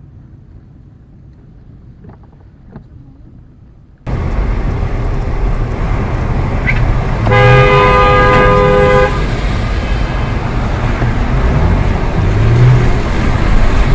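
Low, quiet road hum inside a car, then an abrupt jump to loud street traffic noise about four seconds in. Midway a vehicle horn sounds one steady blast of about a second and a half.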